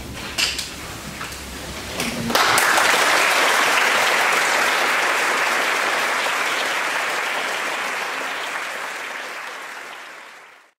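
Audience applauding in a concert hall: a few scattered claps at first, then full applause breaks out about two seconds in, slowly fading and cut off near the end.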